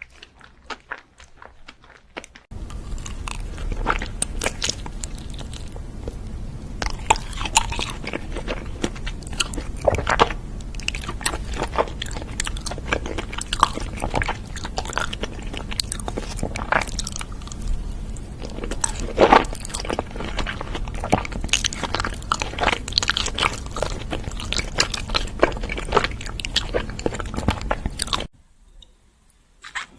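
Close-miked biting and chewing of crunchy sweets, with dense sharp crunches. A louder, denser stretch of crunching starts about two and a half seconds in and cuts off abruptly near the end.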